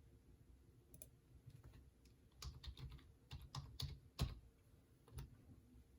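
Faint typing on a computer keyboard: a quick run of about a dozen key clicks, with one louder keystroke near the end of the run, as a file name is typed in.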